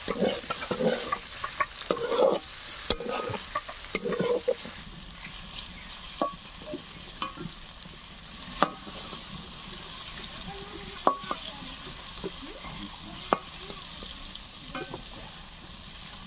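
Pieces of snake fish frying in oil in a wok with a steady sizzle. A spatula scrapes and turns them around the pan for the first few seconds, then knocks against the wok a few times.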